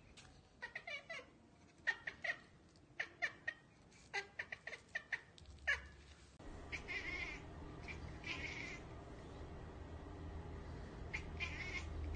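Cat chattering: rapid stuttering clicks and short chirps in quick runs for about six seconds. Then, over a steady low hum, three short chirping calls follow. This is the excited noise cats typically make at birds or insects they cannot get to.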